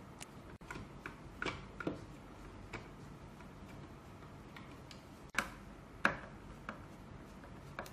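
Cross-head screwdriver unscrewing the back-cover screws of a self-balancing scooter's plastic shell: scattered faint clicks and ticks, with two louder clicks about five and six seconds in.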